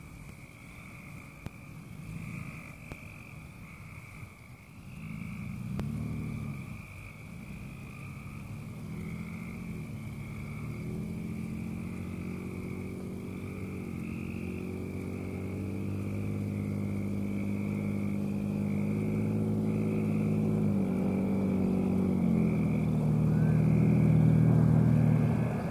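Ford F-150 pickup truck approaching from a distance, its engine growing louder as it comes, the pitch climbing and dropping back twice as it shifts up through the gears. A steady high-pitched chorus of night creatures carries on behind it.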